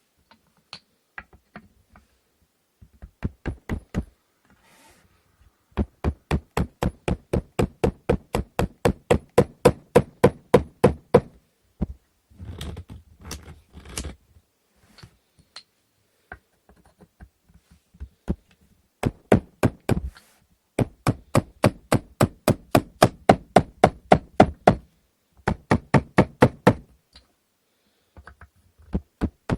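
Rapid repeated knocking on the wooden parts of an inkle loom, about four sharp knocks a second in runs of several seconds broken by short pauses.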